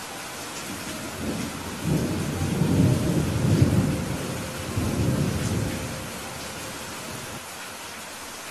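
Steady rain hiss with a roll of thunder: a low rumble builds about a second in, swells in waves for several seconds, then fades, leaving only the rain.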